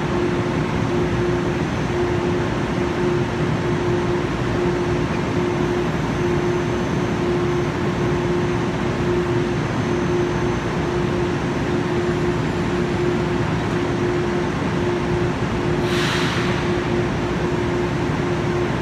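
Budd M3A electric multiple-unit train standing at the platform, its onboard equipment and ventilation running with a steady hum and a steady tone that drops out briefly about every second and a half. About sixteen seconds in, a short hiss of air.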